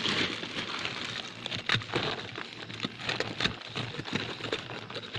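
Irregular crackling and scraping with many sharp clicks as a stingless bee nest is broken open to get at the honey.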